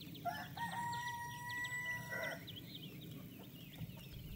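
A rooster crowing once, one held call of about two seconds starting about half a second in. Quick high chirps from other birds go on throughout.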